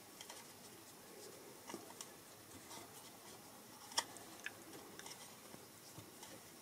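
Faint scratchy handling noise and small clicks from a hex driver turning a tight screw out of an RC truck's suspension, with one sharp click about four seconds in.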